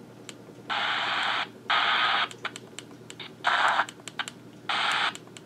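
Grundig E Traveller VII portable radio's small speaker giving four bursts of static hiss, each about half a second, with sharp clicks of its push buttons in between as it is tuned.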